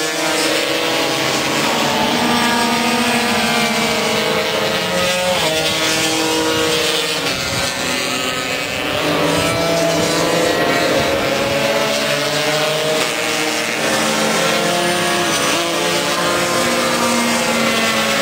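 Several two-stroke racing scooter engines, classic smallframe Vespas and Lambrettas, screaming at high revs as a pack goes by. Their notes overlap and rise and fall with throttle and gear changes.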